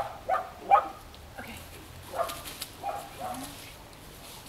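A dog barking in a string of short, sharp barks, the loudest about three-quarters of a second in.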